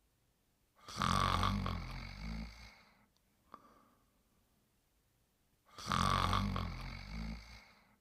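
Snoring in deep sleep: two long snores about five seconds apart, each about two seconds long, loudest at the start and then trailing off. A short, faint puff of breath comes between them.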